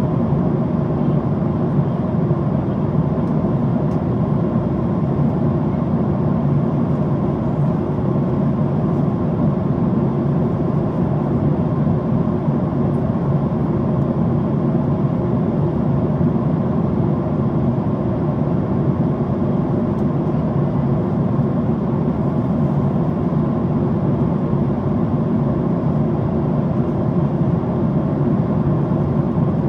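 Boeing 767-400ER cabin at cruise: a steady, unbroken rushing hum of airflow and engines, heard from inside the passenger cabin.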